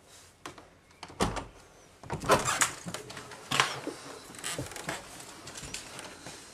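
Glass sliding door being worked open: a deep thud about a second in, then a run of knocks, clunks and rattling scrapes as the door slides.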